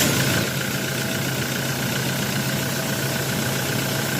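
Toyota Hilux 2GD four-cylinder turbodiesel idling steadily, just caught after cranking. This engine starts hard and stalls because air bubbles are getting into its fuel through the filter.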